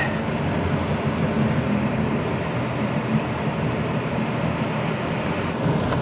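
Steady road noise heard inside a Honda Vezel Hybrid driving on a paved road: tyre rumble and drivetrain hum, even throughout.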